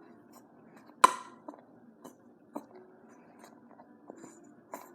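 Spatula clicking and tapping against a bowl while stirring glue and lotion for slime, with one sharp clink that rings briefly about a second in.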